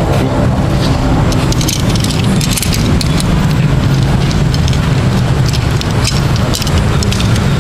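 Tent fabric and poles being handled, rustling with scattered clicks, over a steady low rumble.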